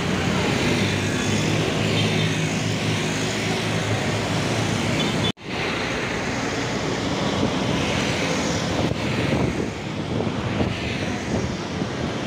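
Traffic and road noise heard from a moving bicycle on a city street, with a steady vehicle engine hum through the first few seconds. The sound cuts out for an instant about five seconds in, then the road noise carries on.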